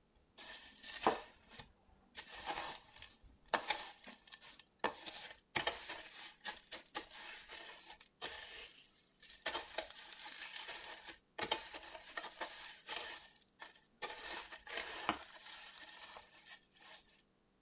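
Dry panko breadcrumbs crunching and rustling as a raw pork loin cutlet is pressed and turned in them by hand, coming in repeated spells with short pauses. A few sharper clicks come from fingers and the cutlet knocking the ceramic dish.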